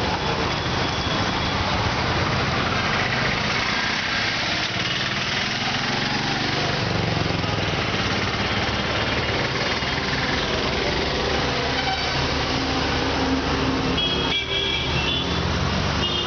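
Road traffic passing: vehicle engines and tyre noise, with a brief high, horn-like tone near the end.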